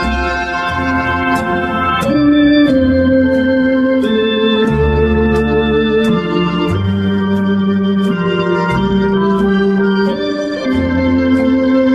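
Background music on an organ-like keyboard: held chords that change every second or two over a bass line, with a light steady tick above.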